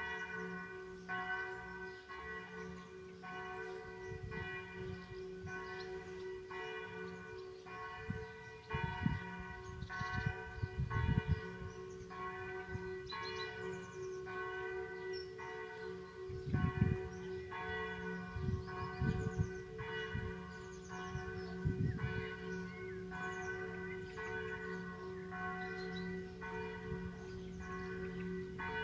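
A church bell tolling, struck about once a second, each stroke ringing with the same set of overtones while the bell's low hum sounds on beneath. A few low rumbles come and go partway through.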